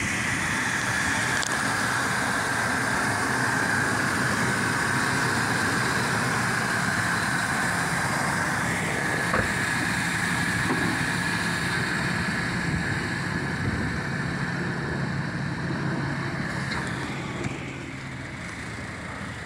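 2004 Chevrolet Silverado 1500 pickup engine idling steadily under an open hood, with a steady high whir over the low engine note. It becomes a little quieter near the end.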